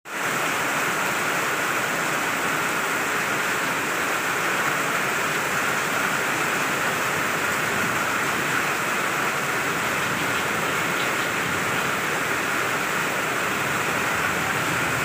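A river in spate, fast muddy floodwater rushing past, making a loud, steady rush of water that does not let up.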